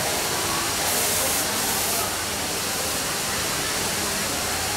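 Steady hiss of workroom background noise in a garment factory, with faint distant voices under it and a brief brighter rustle about a second in.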